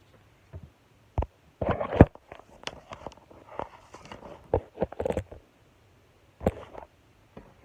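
Foam-bead slime being squeezed and poked by hand: irregular wet squelches and sharp little pops, the loudest about two seconds in and again at six and a half seconds.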